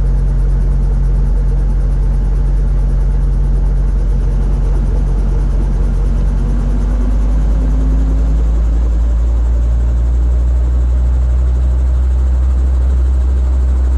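Robinson R22 Beta II helicopter's four-cylinder Lycoming piston engine running, a steady low drone. A faint tone rises in pitch between about six and eight seconds in, and the low drone deepens slightly about ten seconds in.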